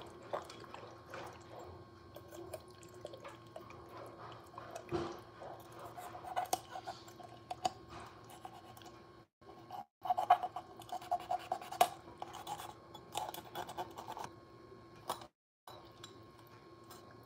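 Knife cutting through raw chicken on a wooden cutting board: soft scattered clicks, squelching and rubbing of blade against flesh and board, over a faint steady hum.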